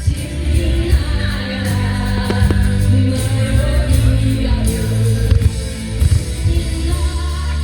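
A song with singing and a full musical backing, with a few sharp firework bangs cutting through it.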